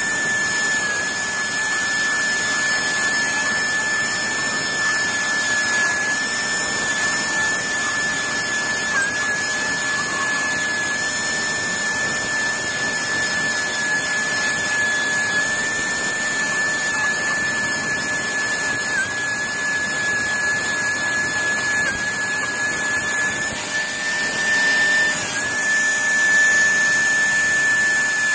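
High-speed engraving turbine handpiece with a diamond burr drilling into topaz: a steady high-pitched whine that dips briefly in pitch a few times as the burr works the stone.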